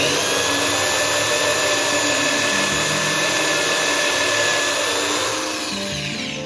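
Electric drill running under load, its bit boring into an armature's copper commutator beside the shaft to cut the commutator free. It runs steadily with a high whine, then winds down with a falling pitch near the end.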